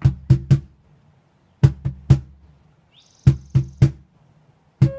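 Drum beats in quick groups of three, then a wooden flute begins a held note just at the end.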